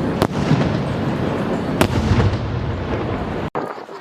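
Fireworks going off in a dense barrage: continuous crackling and rumbling, with two sharp loud bangs, one about a quarter second in and one just under two seconds in. The sound cuts off suddenly about three and a half seconds in and goes on more quietly.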